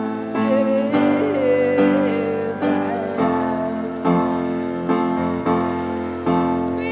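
Background music: a piano playing a steady accompaniment, new notes struck about twice a second.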